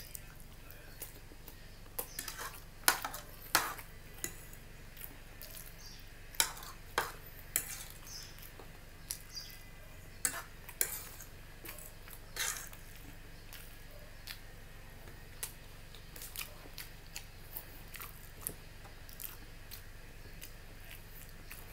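A metal fork clinking and scraping on a plate while picking up noodles and cutting a meatloaf slice, with chewing in between. The clinks are irregular and sharp, the loudest in the first half.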